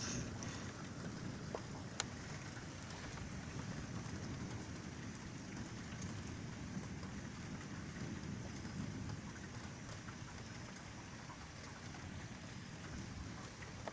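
Steady rain falling during a thunderstorm, with a couple of sharp drip ticks about two seconds in.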